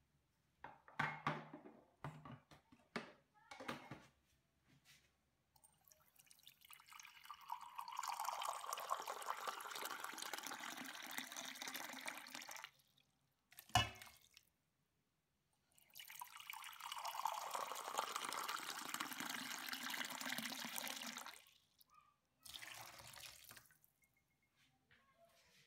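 Water poured from a mug onto grated coconut in a glass bowl: two long, steady pours of about six seconds each, with a sharp knock between them. A few light knocks come in the first few seconds, and there is a short splash near the end.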